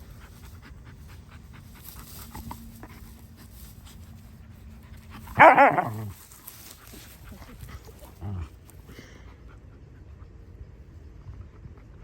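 A dog panting, with one loud, pitched vocal call lasting under a second about five seconds in, then a short low sound a few seconds later.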